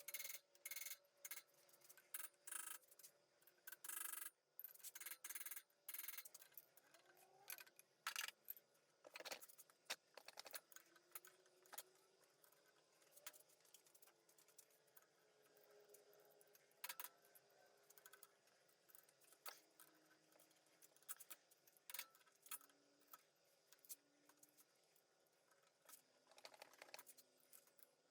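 Faint, scattered metallic clicks and scrapes of hand tools working on engine parts, against near silence.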